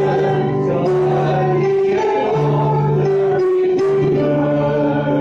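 Mixed choir of men and women singing a hymn in rehearsal, holding long notes that change every second or two.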